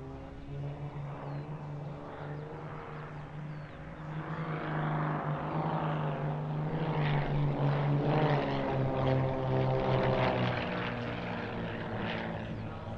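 Zlin 50 aerobatic aircraft flying its display, the piston engine and propeller droning. The sound grows louder from about four seconds in, its pitch bending as the aircraft manoeuvres past, and eases off again near the end.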